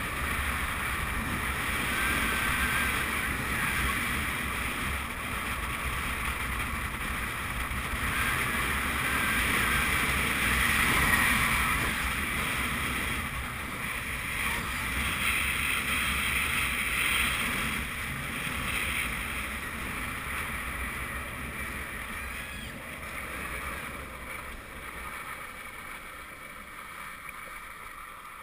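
Wind rushing over a GoPro HD Hero2 together with longboard wheels rolling on asphalt during a fast downhill run: a steady rushing noise that grows gradually quieter over the last several seconds.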